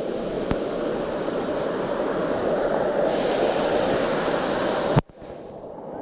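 Waterfall water rushing with a steady, even roar. A sharp click about five seconds in, after which the sound briefly drops away and comes back.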